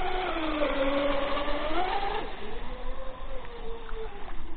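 The twin electric motors of an RC catamaran speedboat are whining over a steady hiss. The pitch dips and rises again with the throttle, then falls away after about two seconds.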